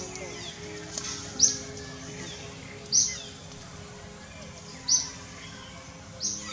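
A bird giving short, sharp, high chirps, one every second or two, over a faint steady background.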